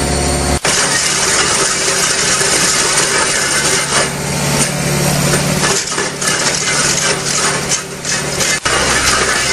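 Excavator-mounted hydraulic drum cutter grinding into a concrete wall: a steady, loud, harsh grinding over a low hum. It drops out abruptly for an instant twice, near the start and near the end.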